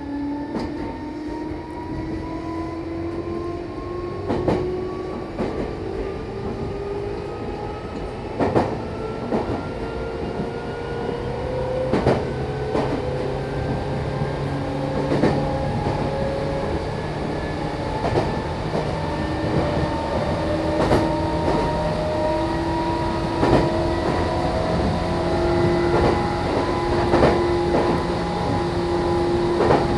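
Meitetsu Bisai Line electric train heard from inside the car. The motor whine rises in pitch as the train accelerates over the first dozen seconds, then holds steady at speed. The wheels click over rail joints every few seconds.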